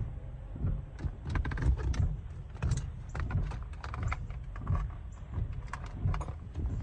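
Irregular clicks, taps and knocks of hands handling plastic dash parts and radio cables, over a low rumble of handling noise.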